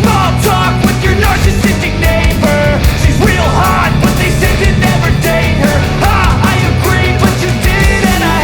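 Loud background rock music with a steady beat and a singing voice.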